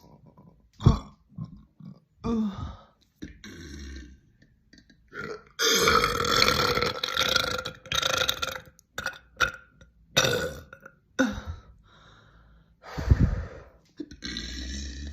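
A string of burps from girls, one after another: several short burps, and a long drawn-out burp lasting about three seconds near the middle.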